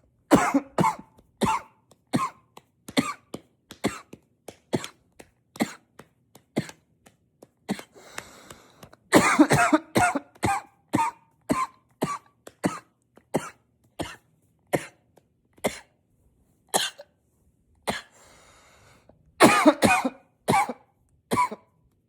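A man's unstoppable coughing fit: short single coughs about twice a second, broken by three harder runs of rapid coughs, each after a breath drawn in.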